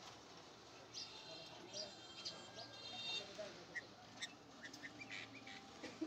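Red-vented bulbuls giving a few clear chirping calls in the first half, followed by a scatter of short, sharp ticks and chirps.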